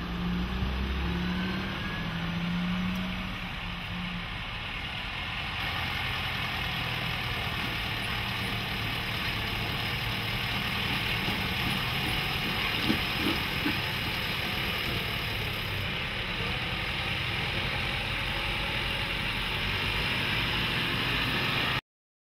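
Mercedes-Benz Unimog U 5023's four-cylinder diesel engine running steadily at low revs as the truck crawls over a steep ramp, with a constant hiss over the engine. A couple of short knocks about 13 seconds in; the sound cuts off just before the end.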